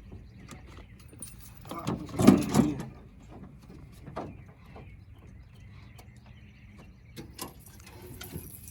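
Scattered knocks, clunks and scrapes of a jon boat and the gear in it, with a louder rattling clunk about two seconds in.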